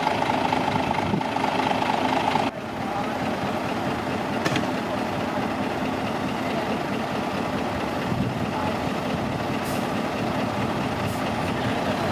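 Heavy diesel engine running steadily, with an abrupt drop in level about two and a half seconds in.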